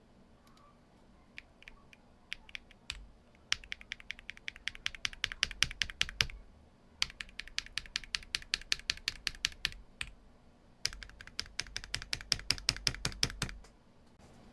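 Typing on a mechanical keyboard fitted with Akko Rosewood linear switches: a few scattered keystrokes, then three runs of fast typing with short pauses between them.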